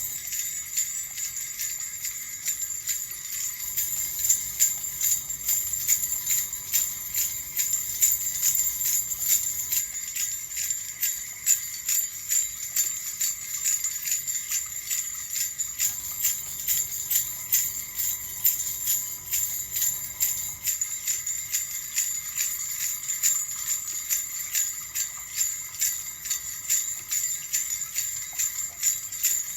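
Small jingle bells shaken continuously in a steady rhythm, a bright, even jingling.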